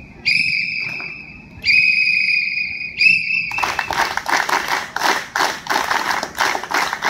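A drill whistle blown in three steady blasts, two long ones and a short one, giving drill commands; then a run of hand claps, several a second, for the last few seconds.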